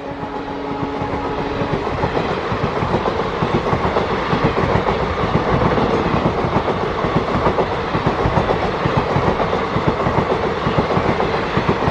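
A train passing close by at speed, its wheels clattering steadily over the rail joints. The multi-tone horn of the WDG3A diesel locomotive cuts off about two seconds in.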